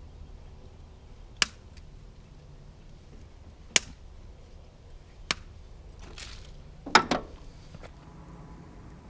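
Sharp knocks of hand tools being worked or set down: three single knocks a second or two apart, then a brief rustle and a louder double knock.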